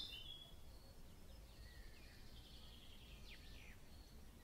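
Near silence with faint birdsong: a few soft chirps and short falling whistled notes from a nature-sounds background.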